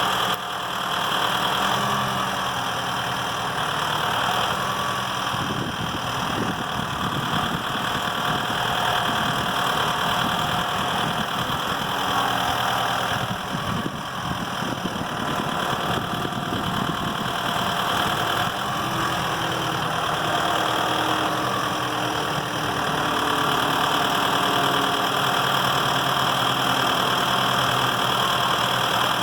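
Tractor engine running steadily, its note shifting a little now and then and growing slightly louder about three-quarters of the way through.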